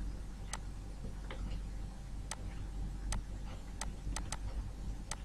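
Irregular sharp clicks of a stylus tapping on a pen tablet while handwriting, about ten of them, over a low steady hum.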